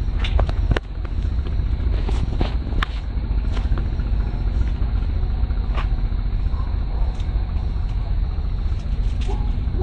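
Steady low rumble of wind buffeting the microphone, with a few sharp clicks and snaps scattered through it.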